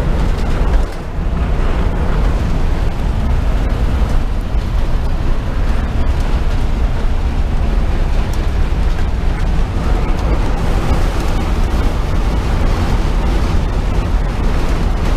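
Steady low rumble of engine, road and wind noise inside the cab of a 1984 Ford Shasta motorhome driving at highway speed.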